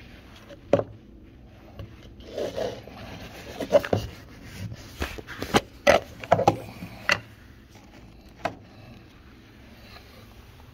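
Hands handling a plastic tub of cleaning tablets: scrapes and rubbing, then a string of sharp clicks and knocks, thickest between about two and seven seconds in.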